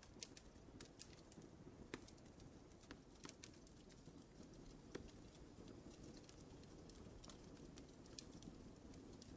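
Wood fire crackling in a fireplace: scattered sharp pops and snaps over a low, steady rumble of the flames.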